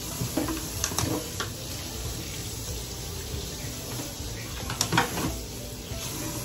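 Water pouring and splashing in a kitchen sink as it is drained from a stainless steel bowl into a plastic colander, with a few light knocks of the bowl against the sink, the loudest about five seconds in.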